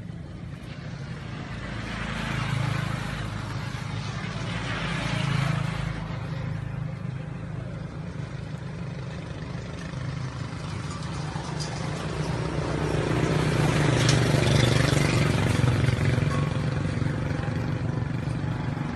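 Motor vehicle engine running with a steady low hum, swelling louder twice, as if vehicles pass by.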